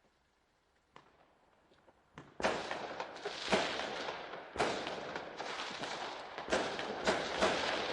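Fireworks going off: a faint pop or two at first, then from about two and a half seconds in a dense, continuous crackle of bangs with a sharper bang every second or so.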